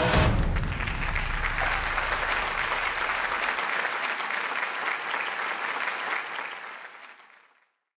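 Theatre audience applauding at the end of a dance performance, just after the music stops; the applause fades out about seven seconds in.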